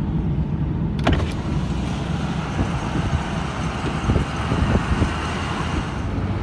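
Inside the cab of a Ford F-350 truck camper driving on a gravel road: steady low road rumble and tyre noise with air rushing past the open side window. A sharp click comes about a second in and a few knocks follow, and the airy hiss drops away near the end.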